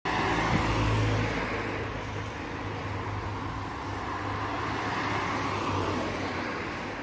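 Road traffic on a multi-lane street: cars driving past with tyre noise and a steady low engine hum, loudest about a second in.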